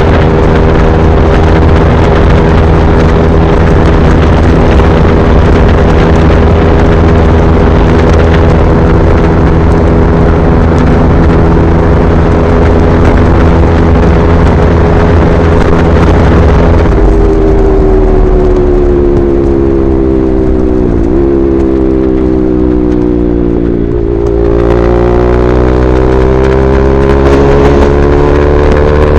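KTM RC 390's single-cylinder engine through an SC Project replica slip-on exhaust, running at a steady highway cruise with wind rush. About two-thirds of the way through, the throttle closes and the exhaust note falls for several seconds, with a short blip partway. It then rises again as the bike accelerates near the end.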